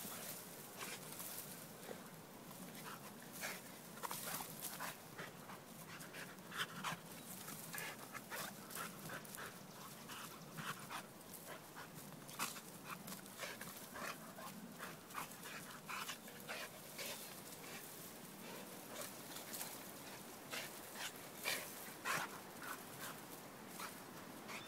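Dog panting in quick, short, irregular breaths as it leaps at and tugs a hanging vine.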